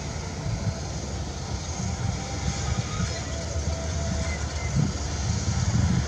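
Diesel engines of single-drum soil compactor rollers running, a steady deep rumble that swells and dips slightly.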